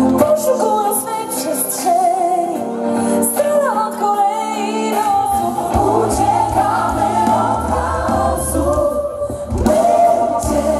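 Live pop band with a female lead singer and backing choir, performing through a PA; she sings a melody of bending, held notes, and a stronger bass comes in about halfway through.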